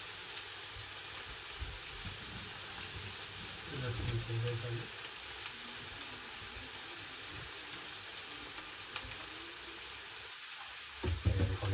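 A steady, even hiss, with a faint voice briefly about four seconds in.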